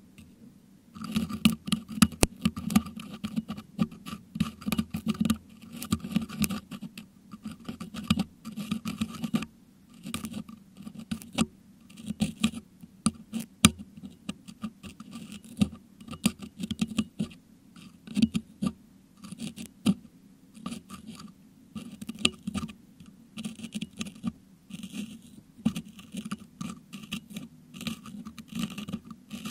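Metal dental hook scratching and picking at a Blue Yeti microphone's grille packed with crushed meringue, picked up close by that same microphone. Dense scraping with sharp clicks starts about a second in and goes on in quick runs with brief pauses.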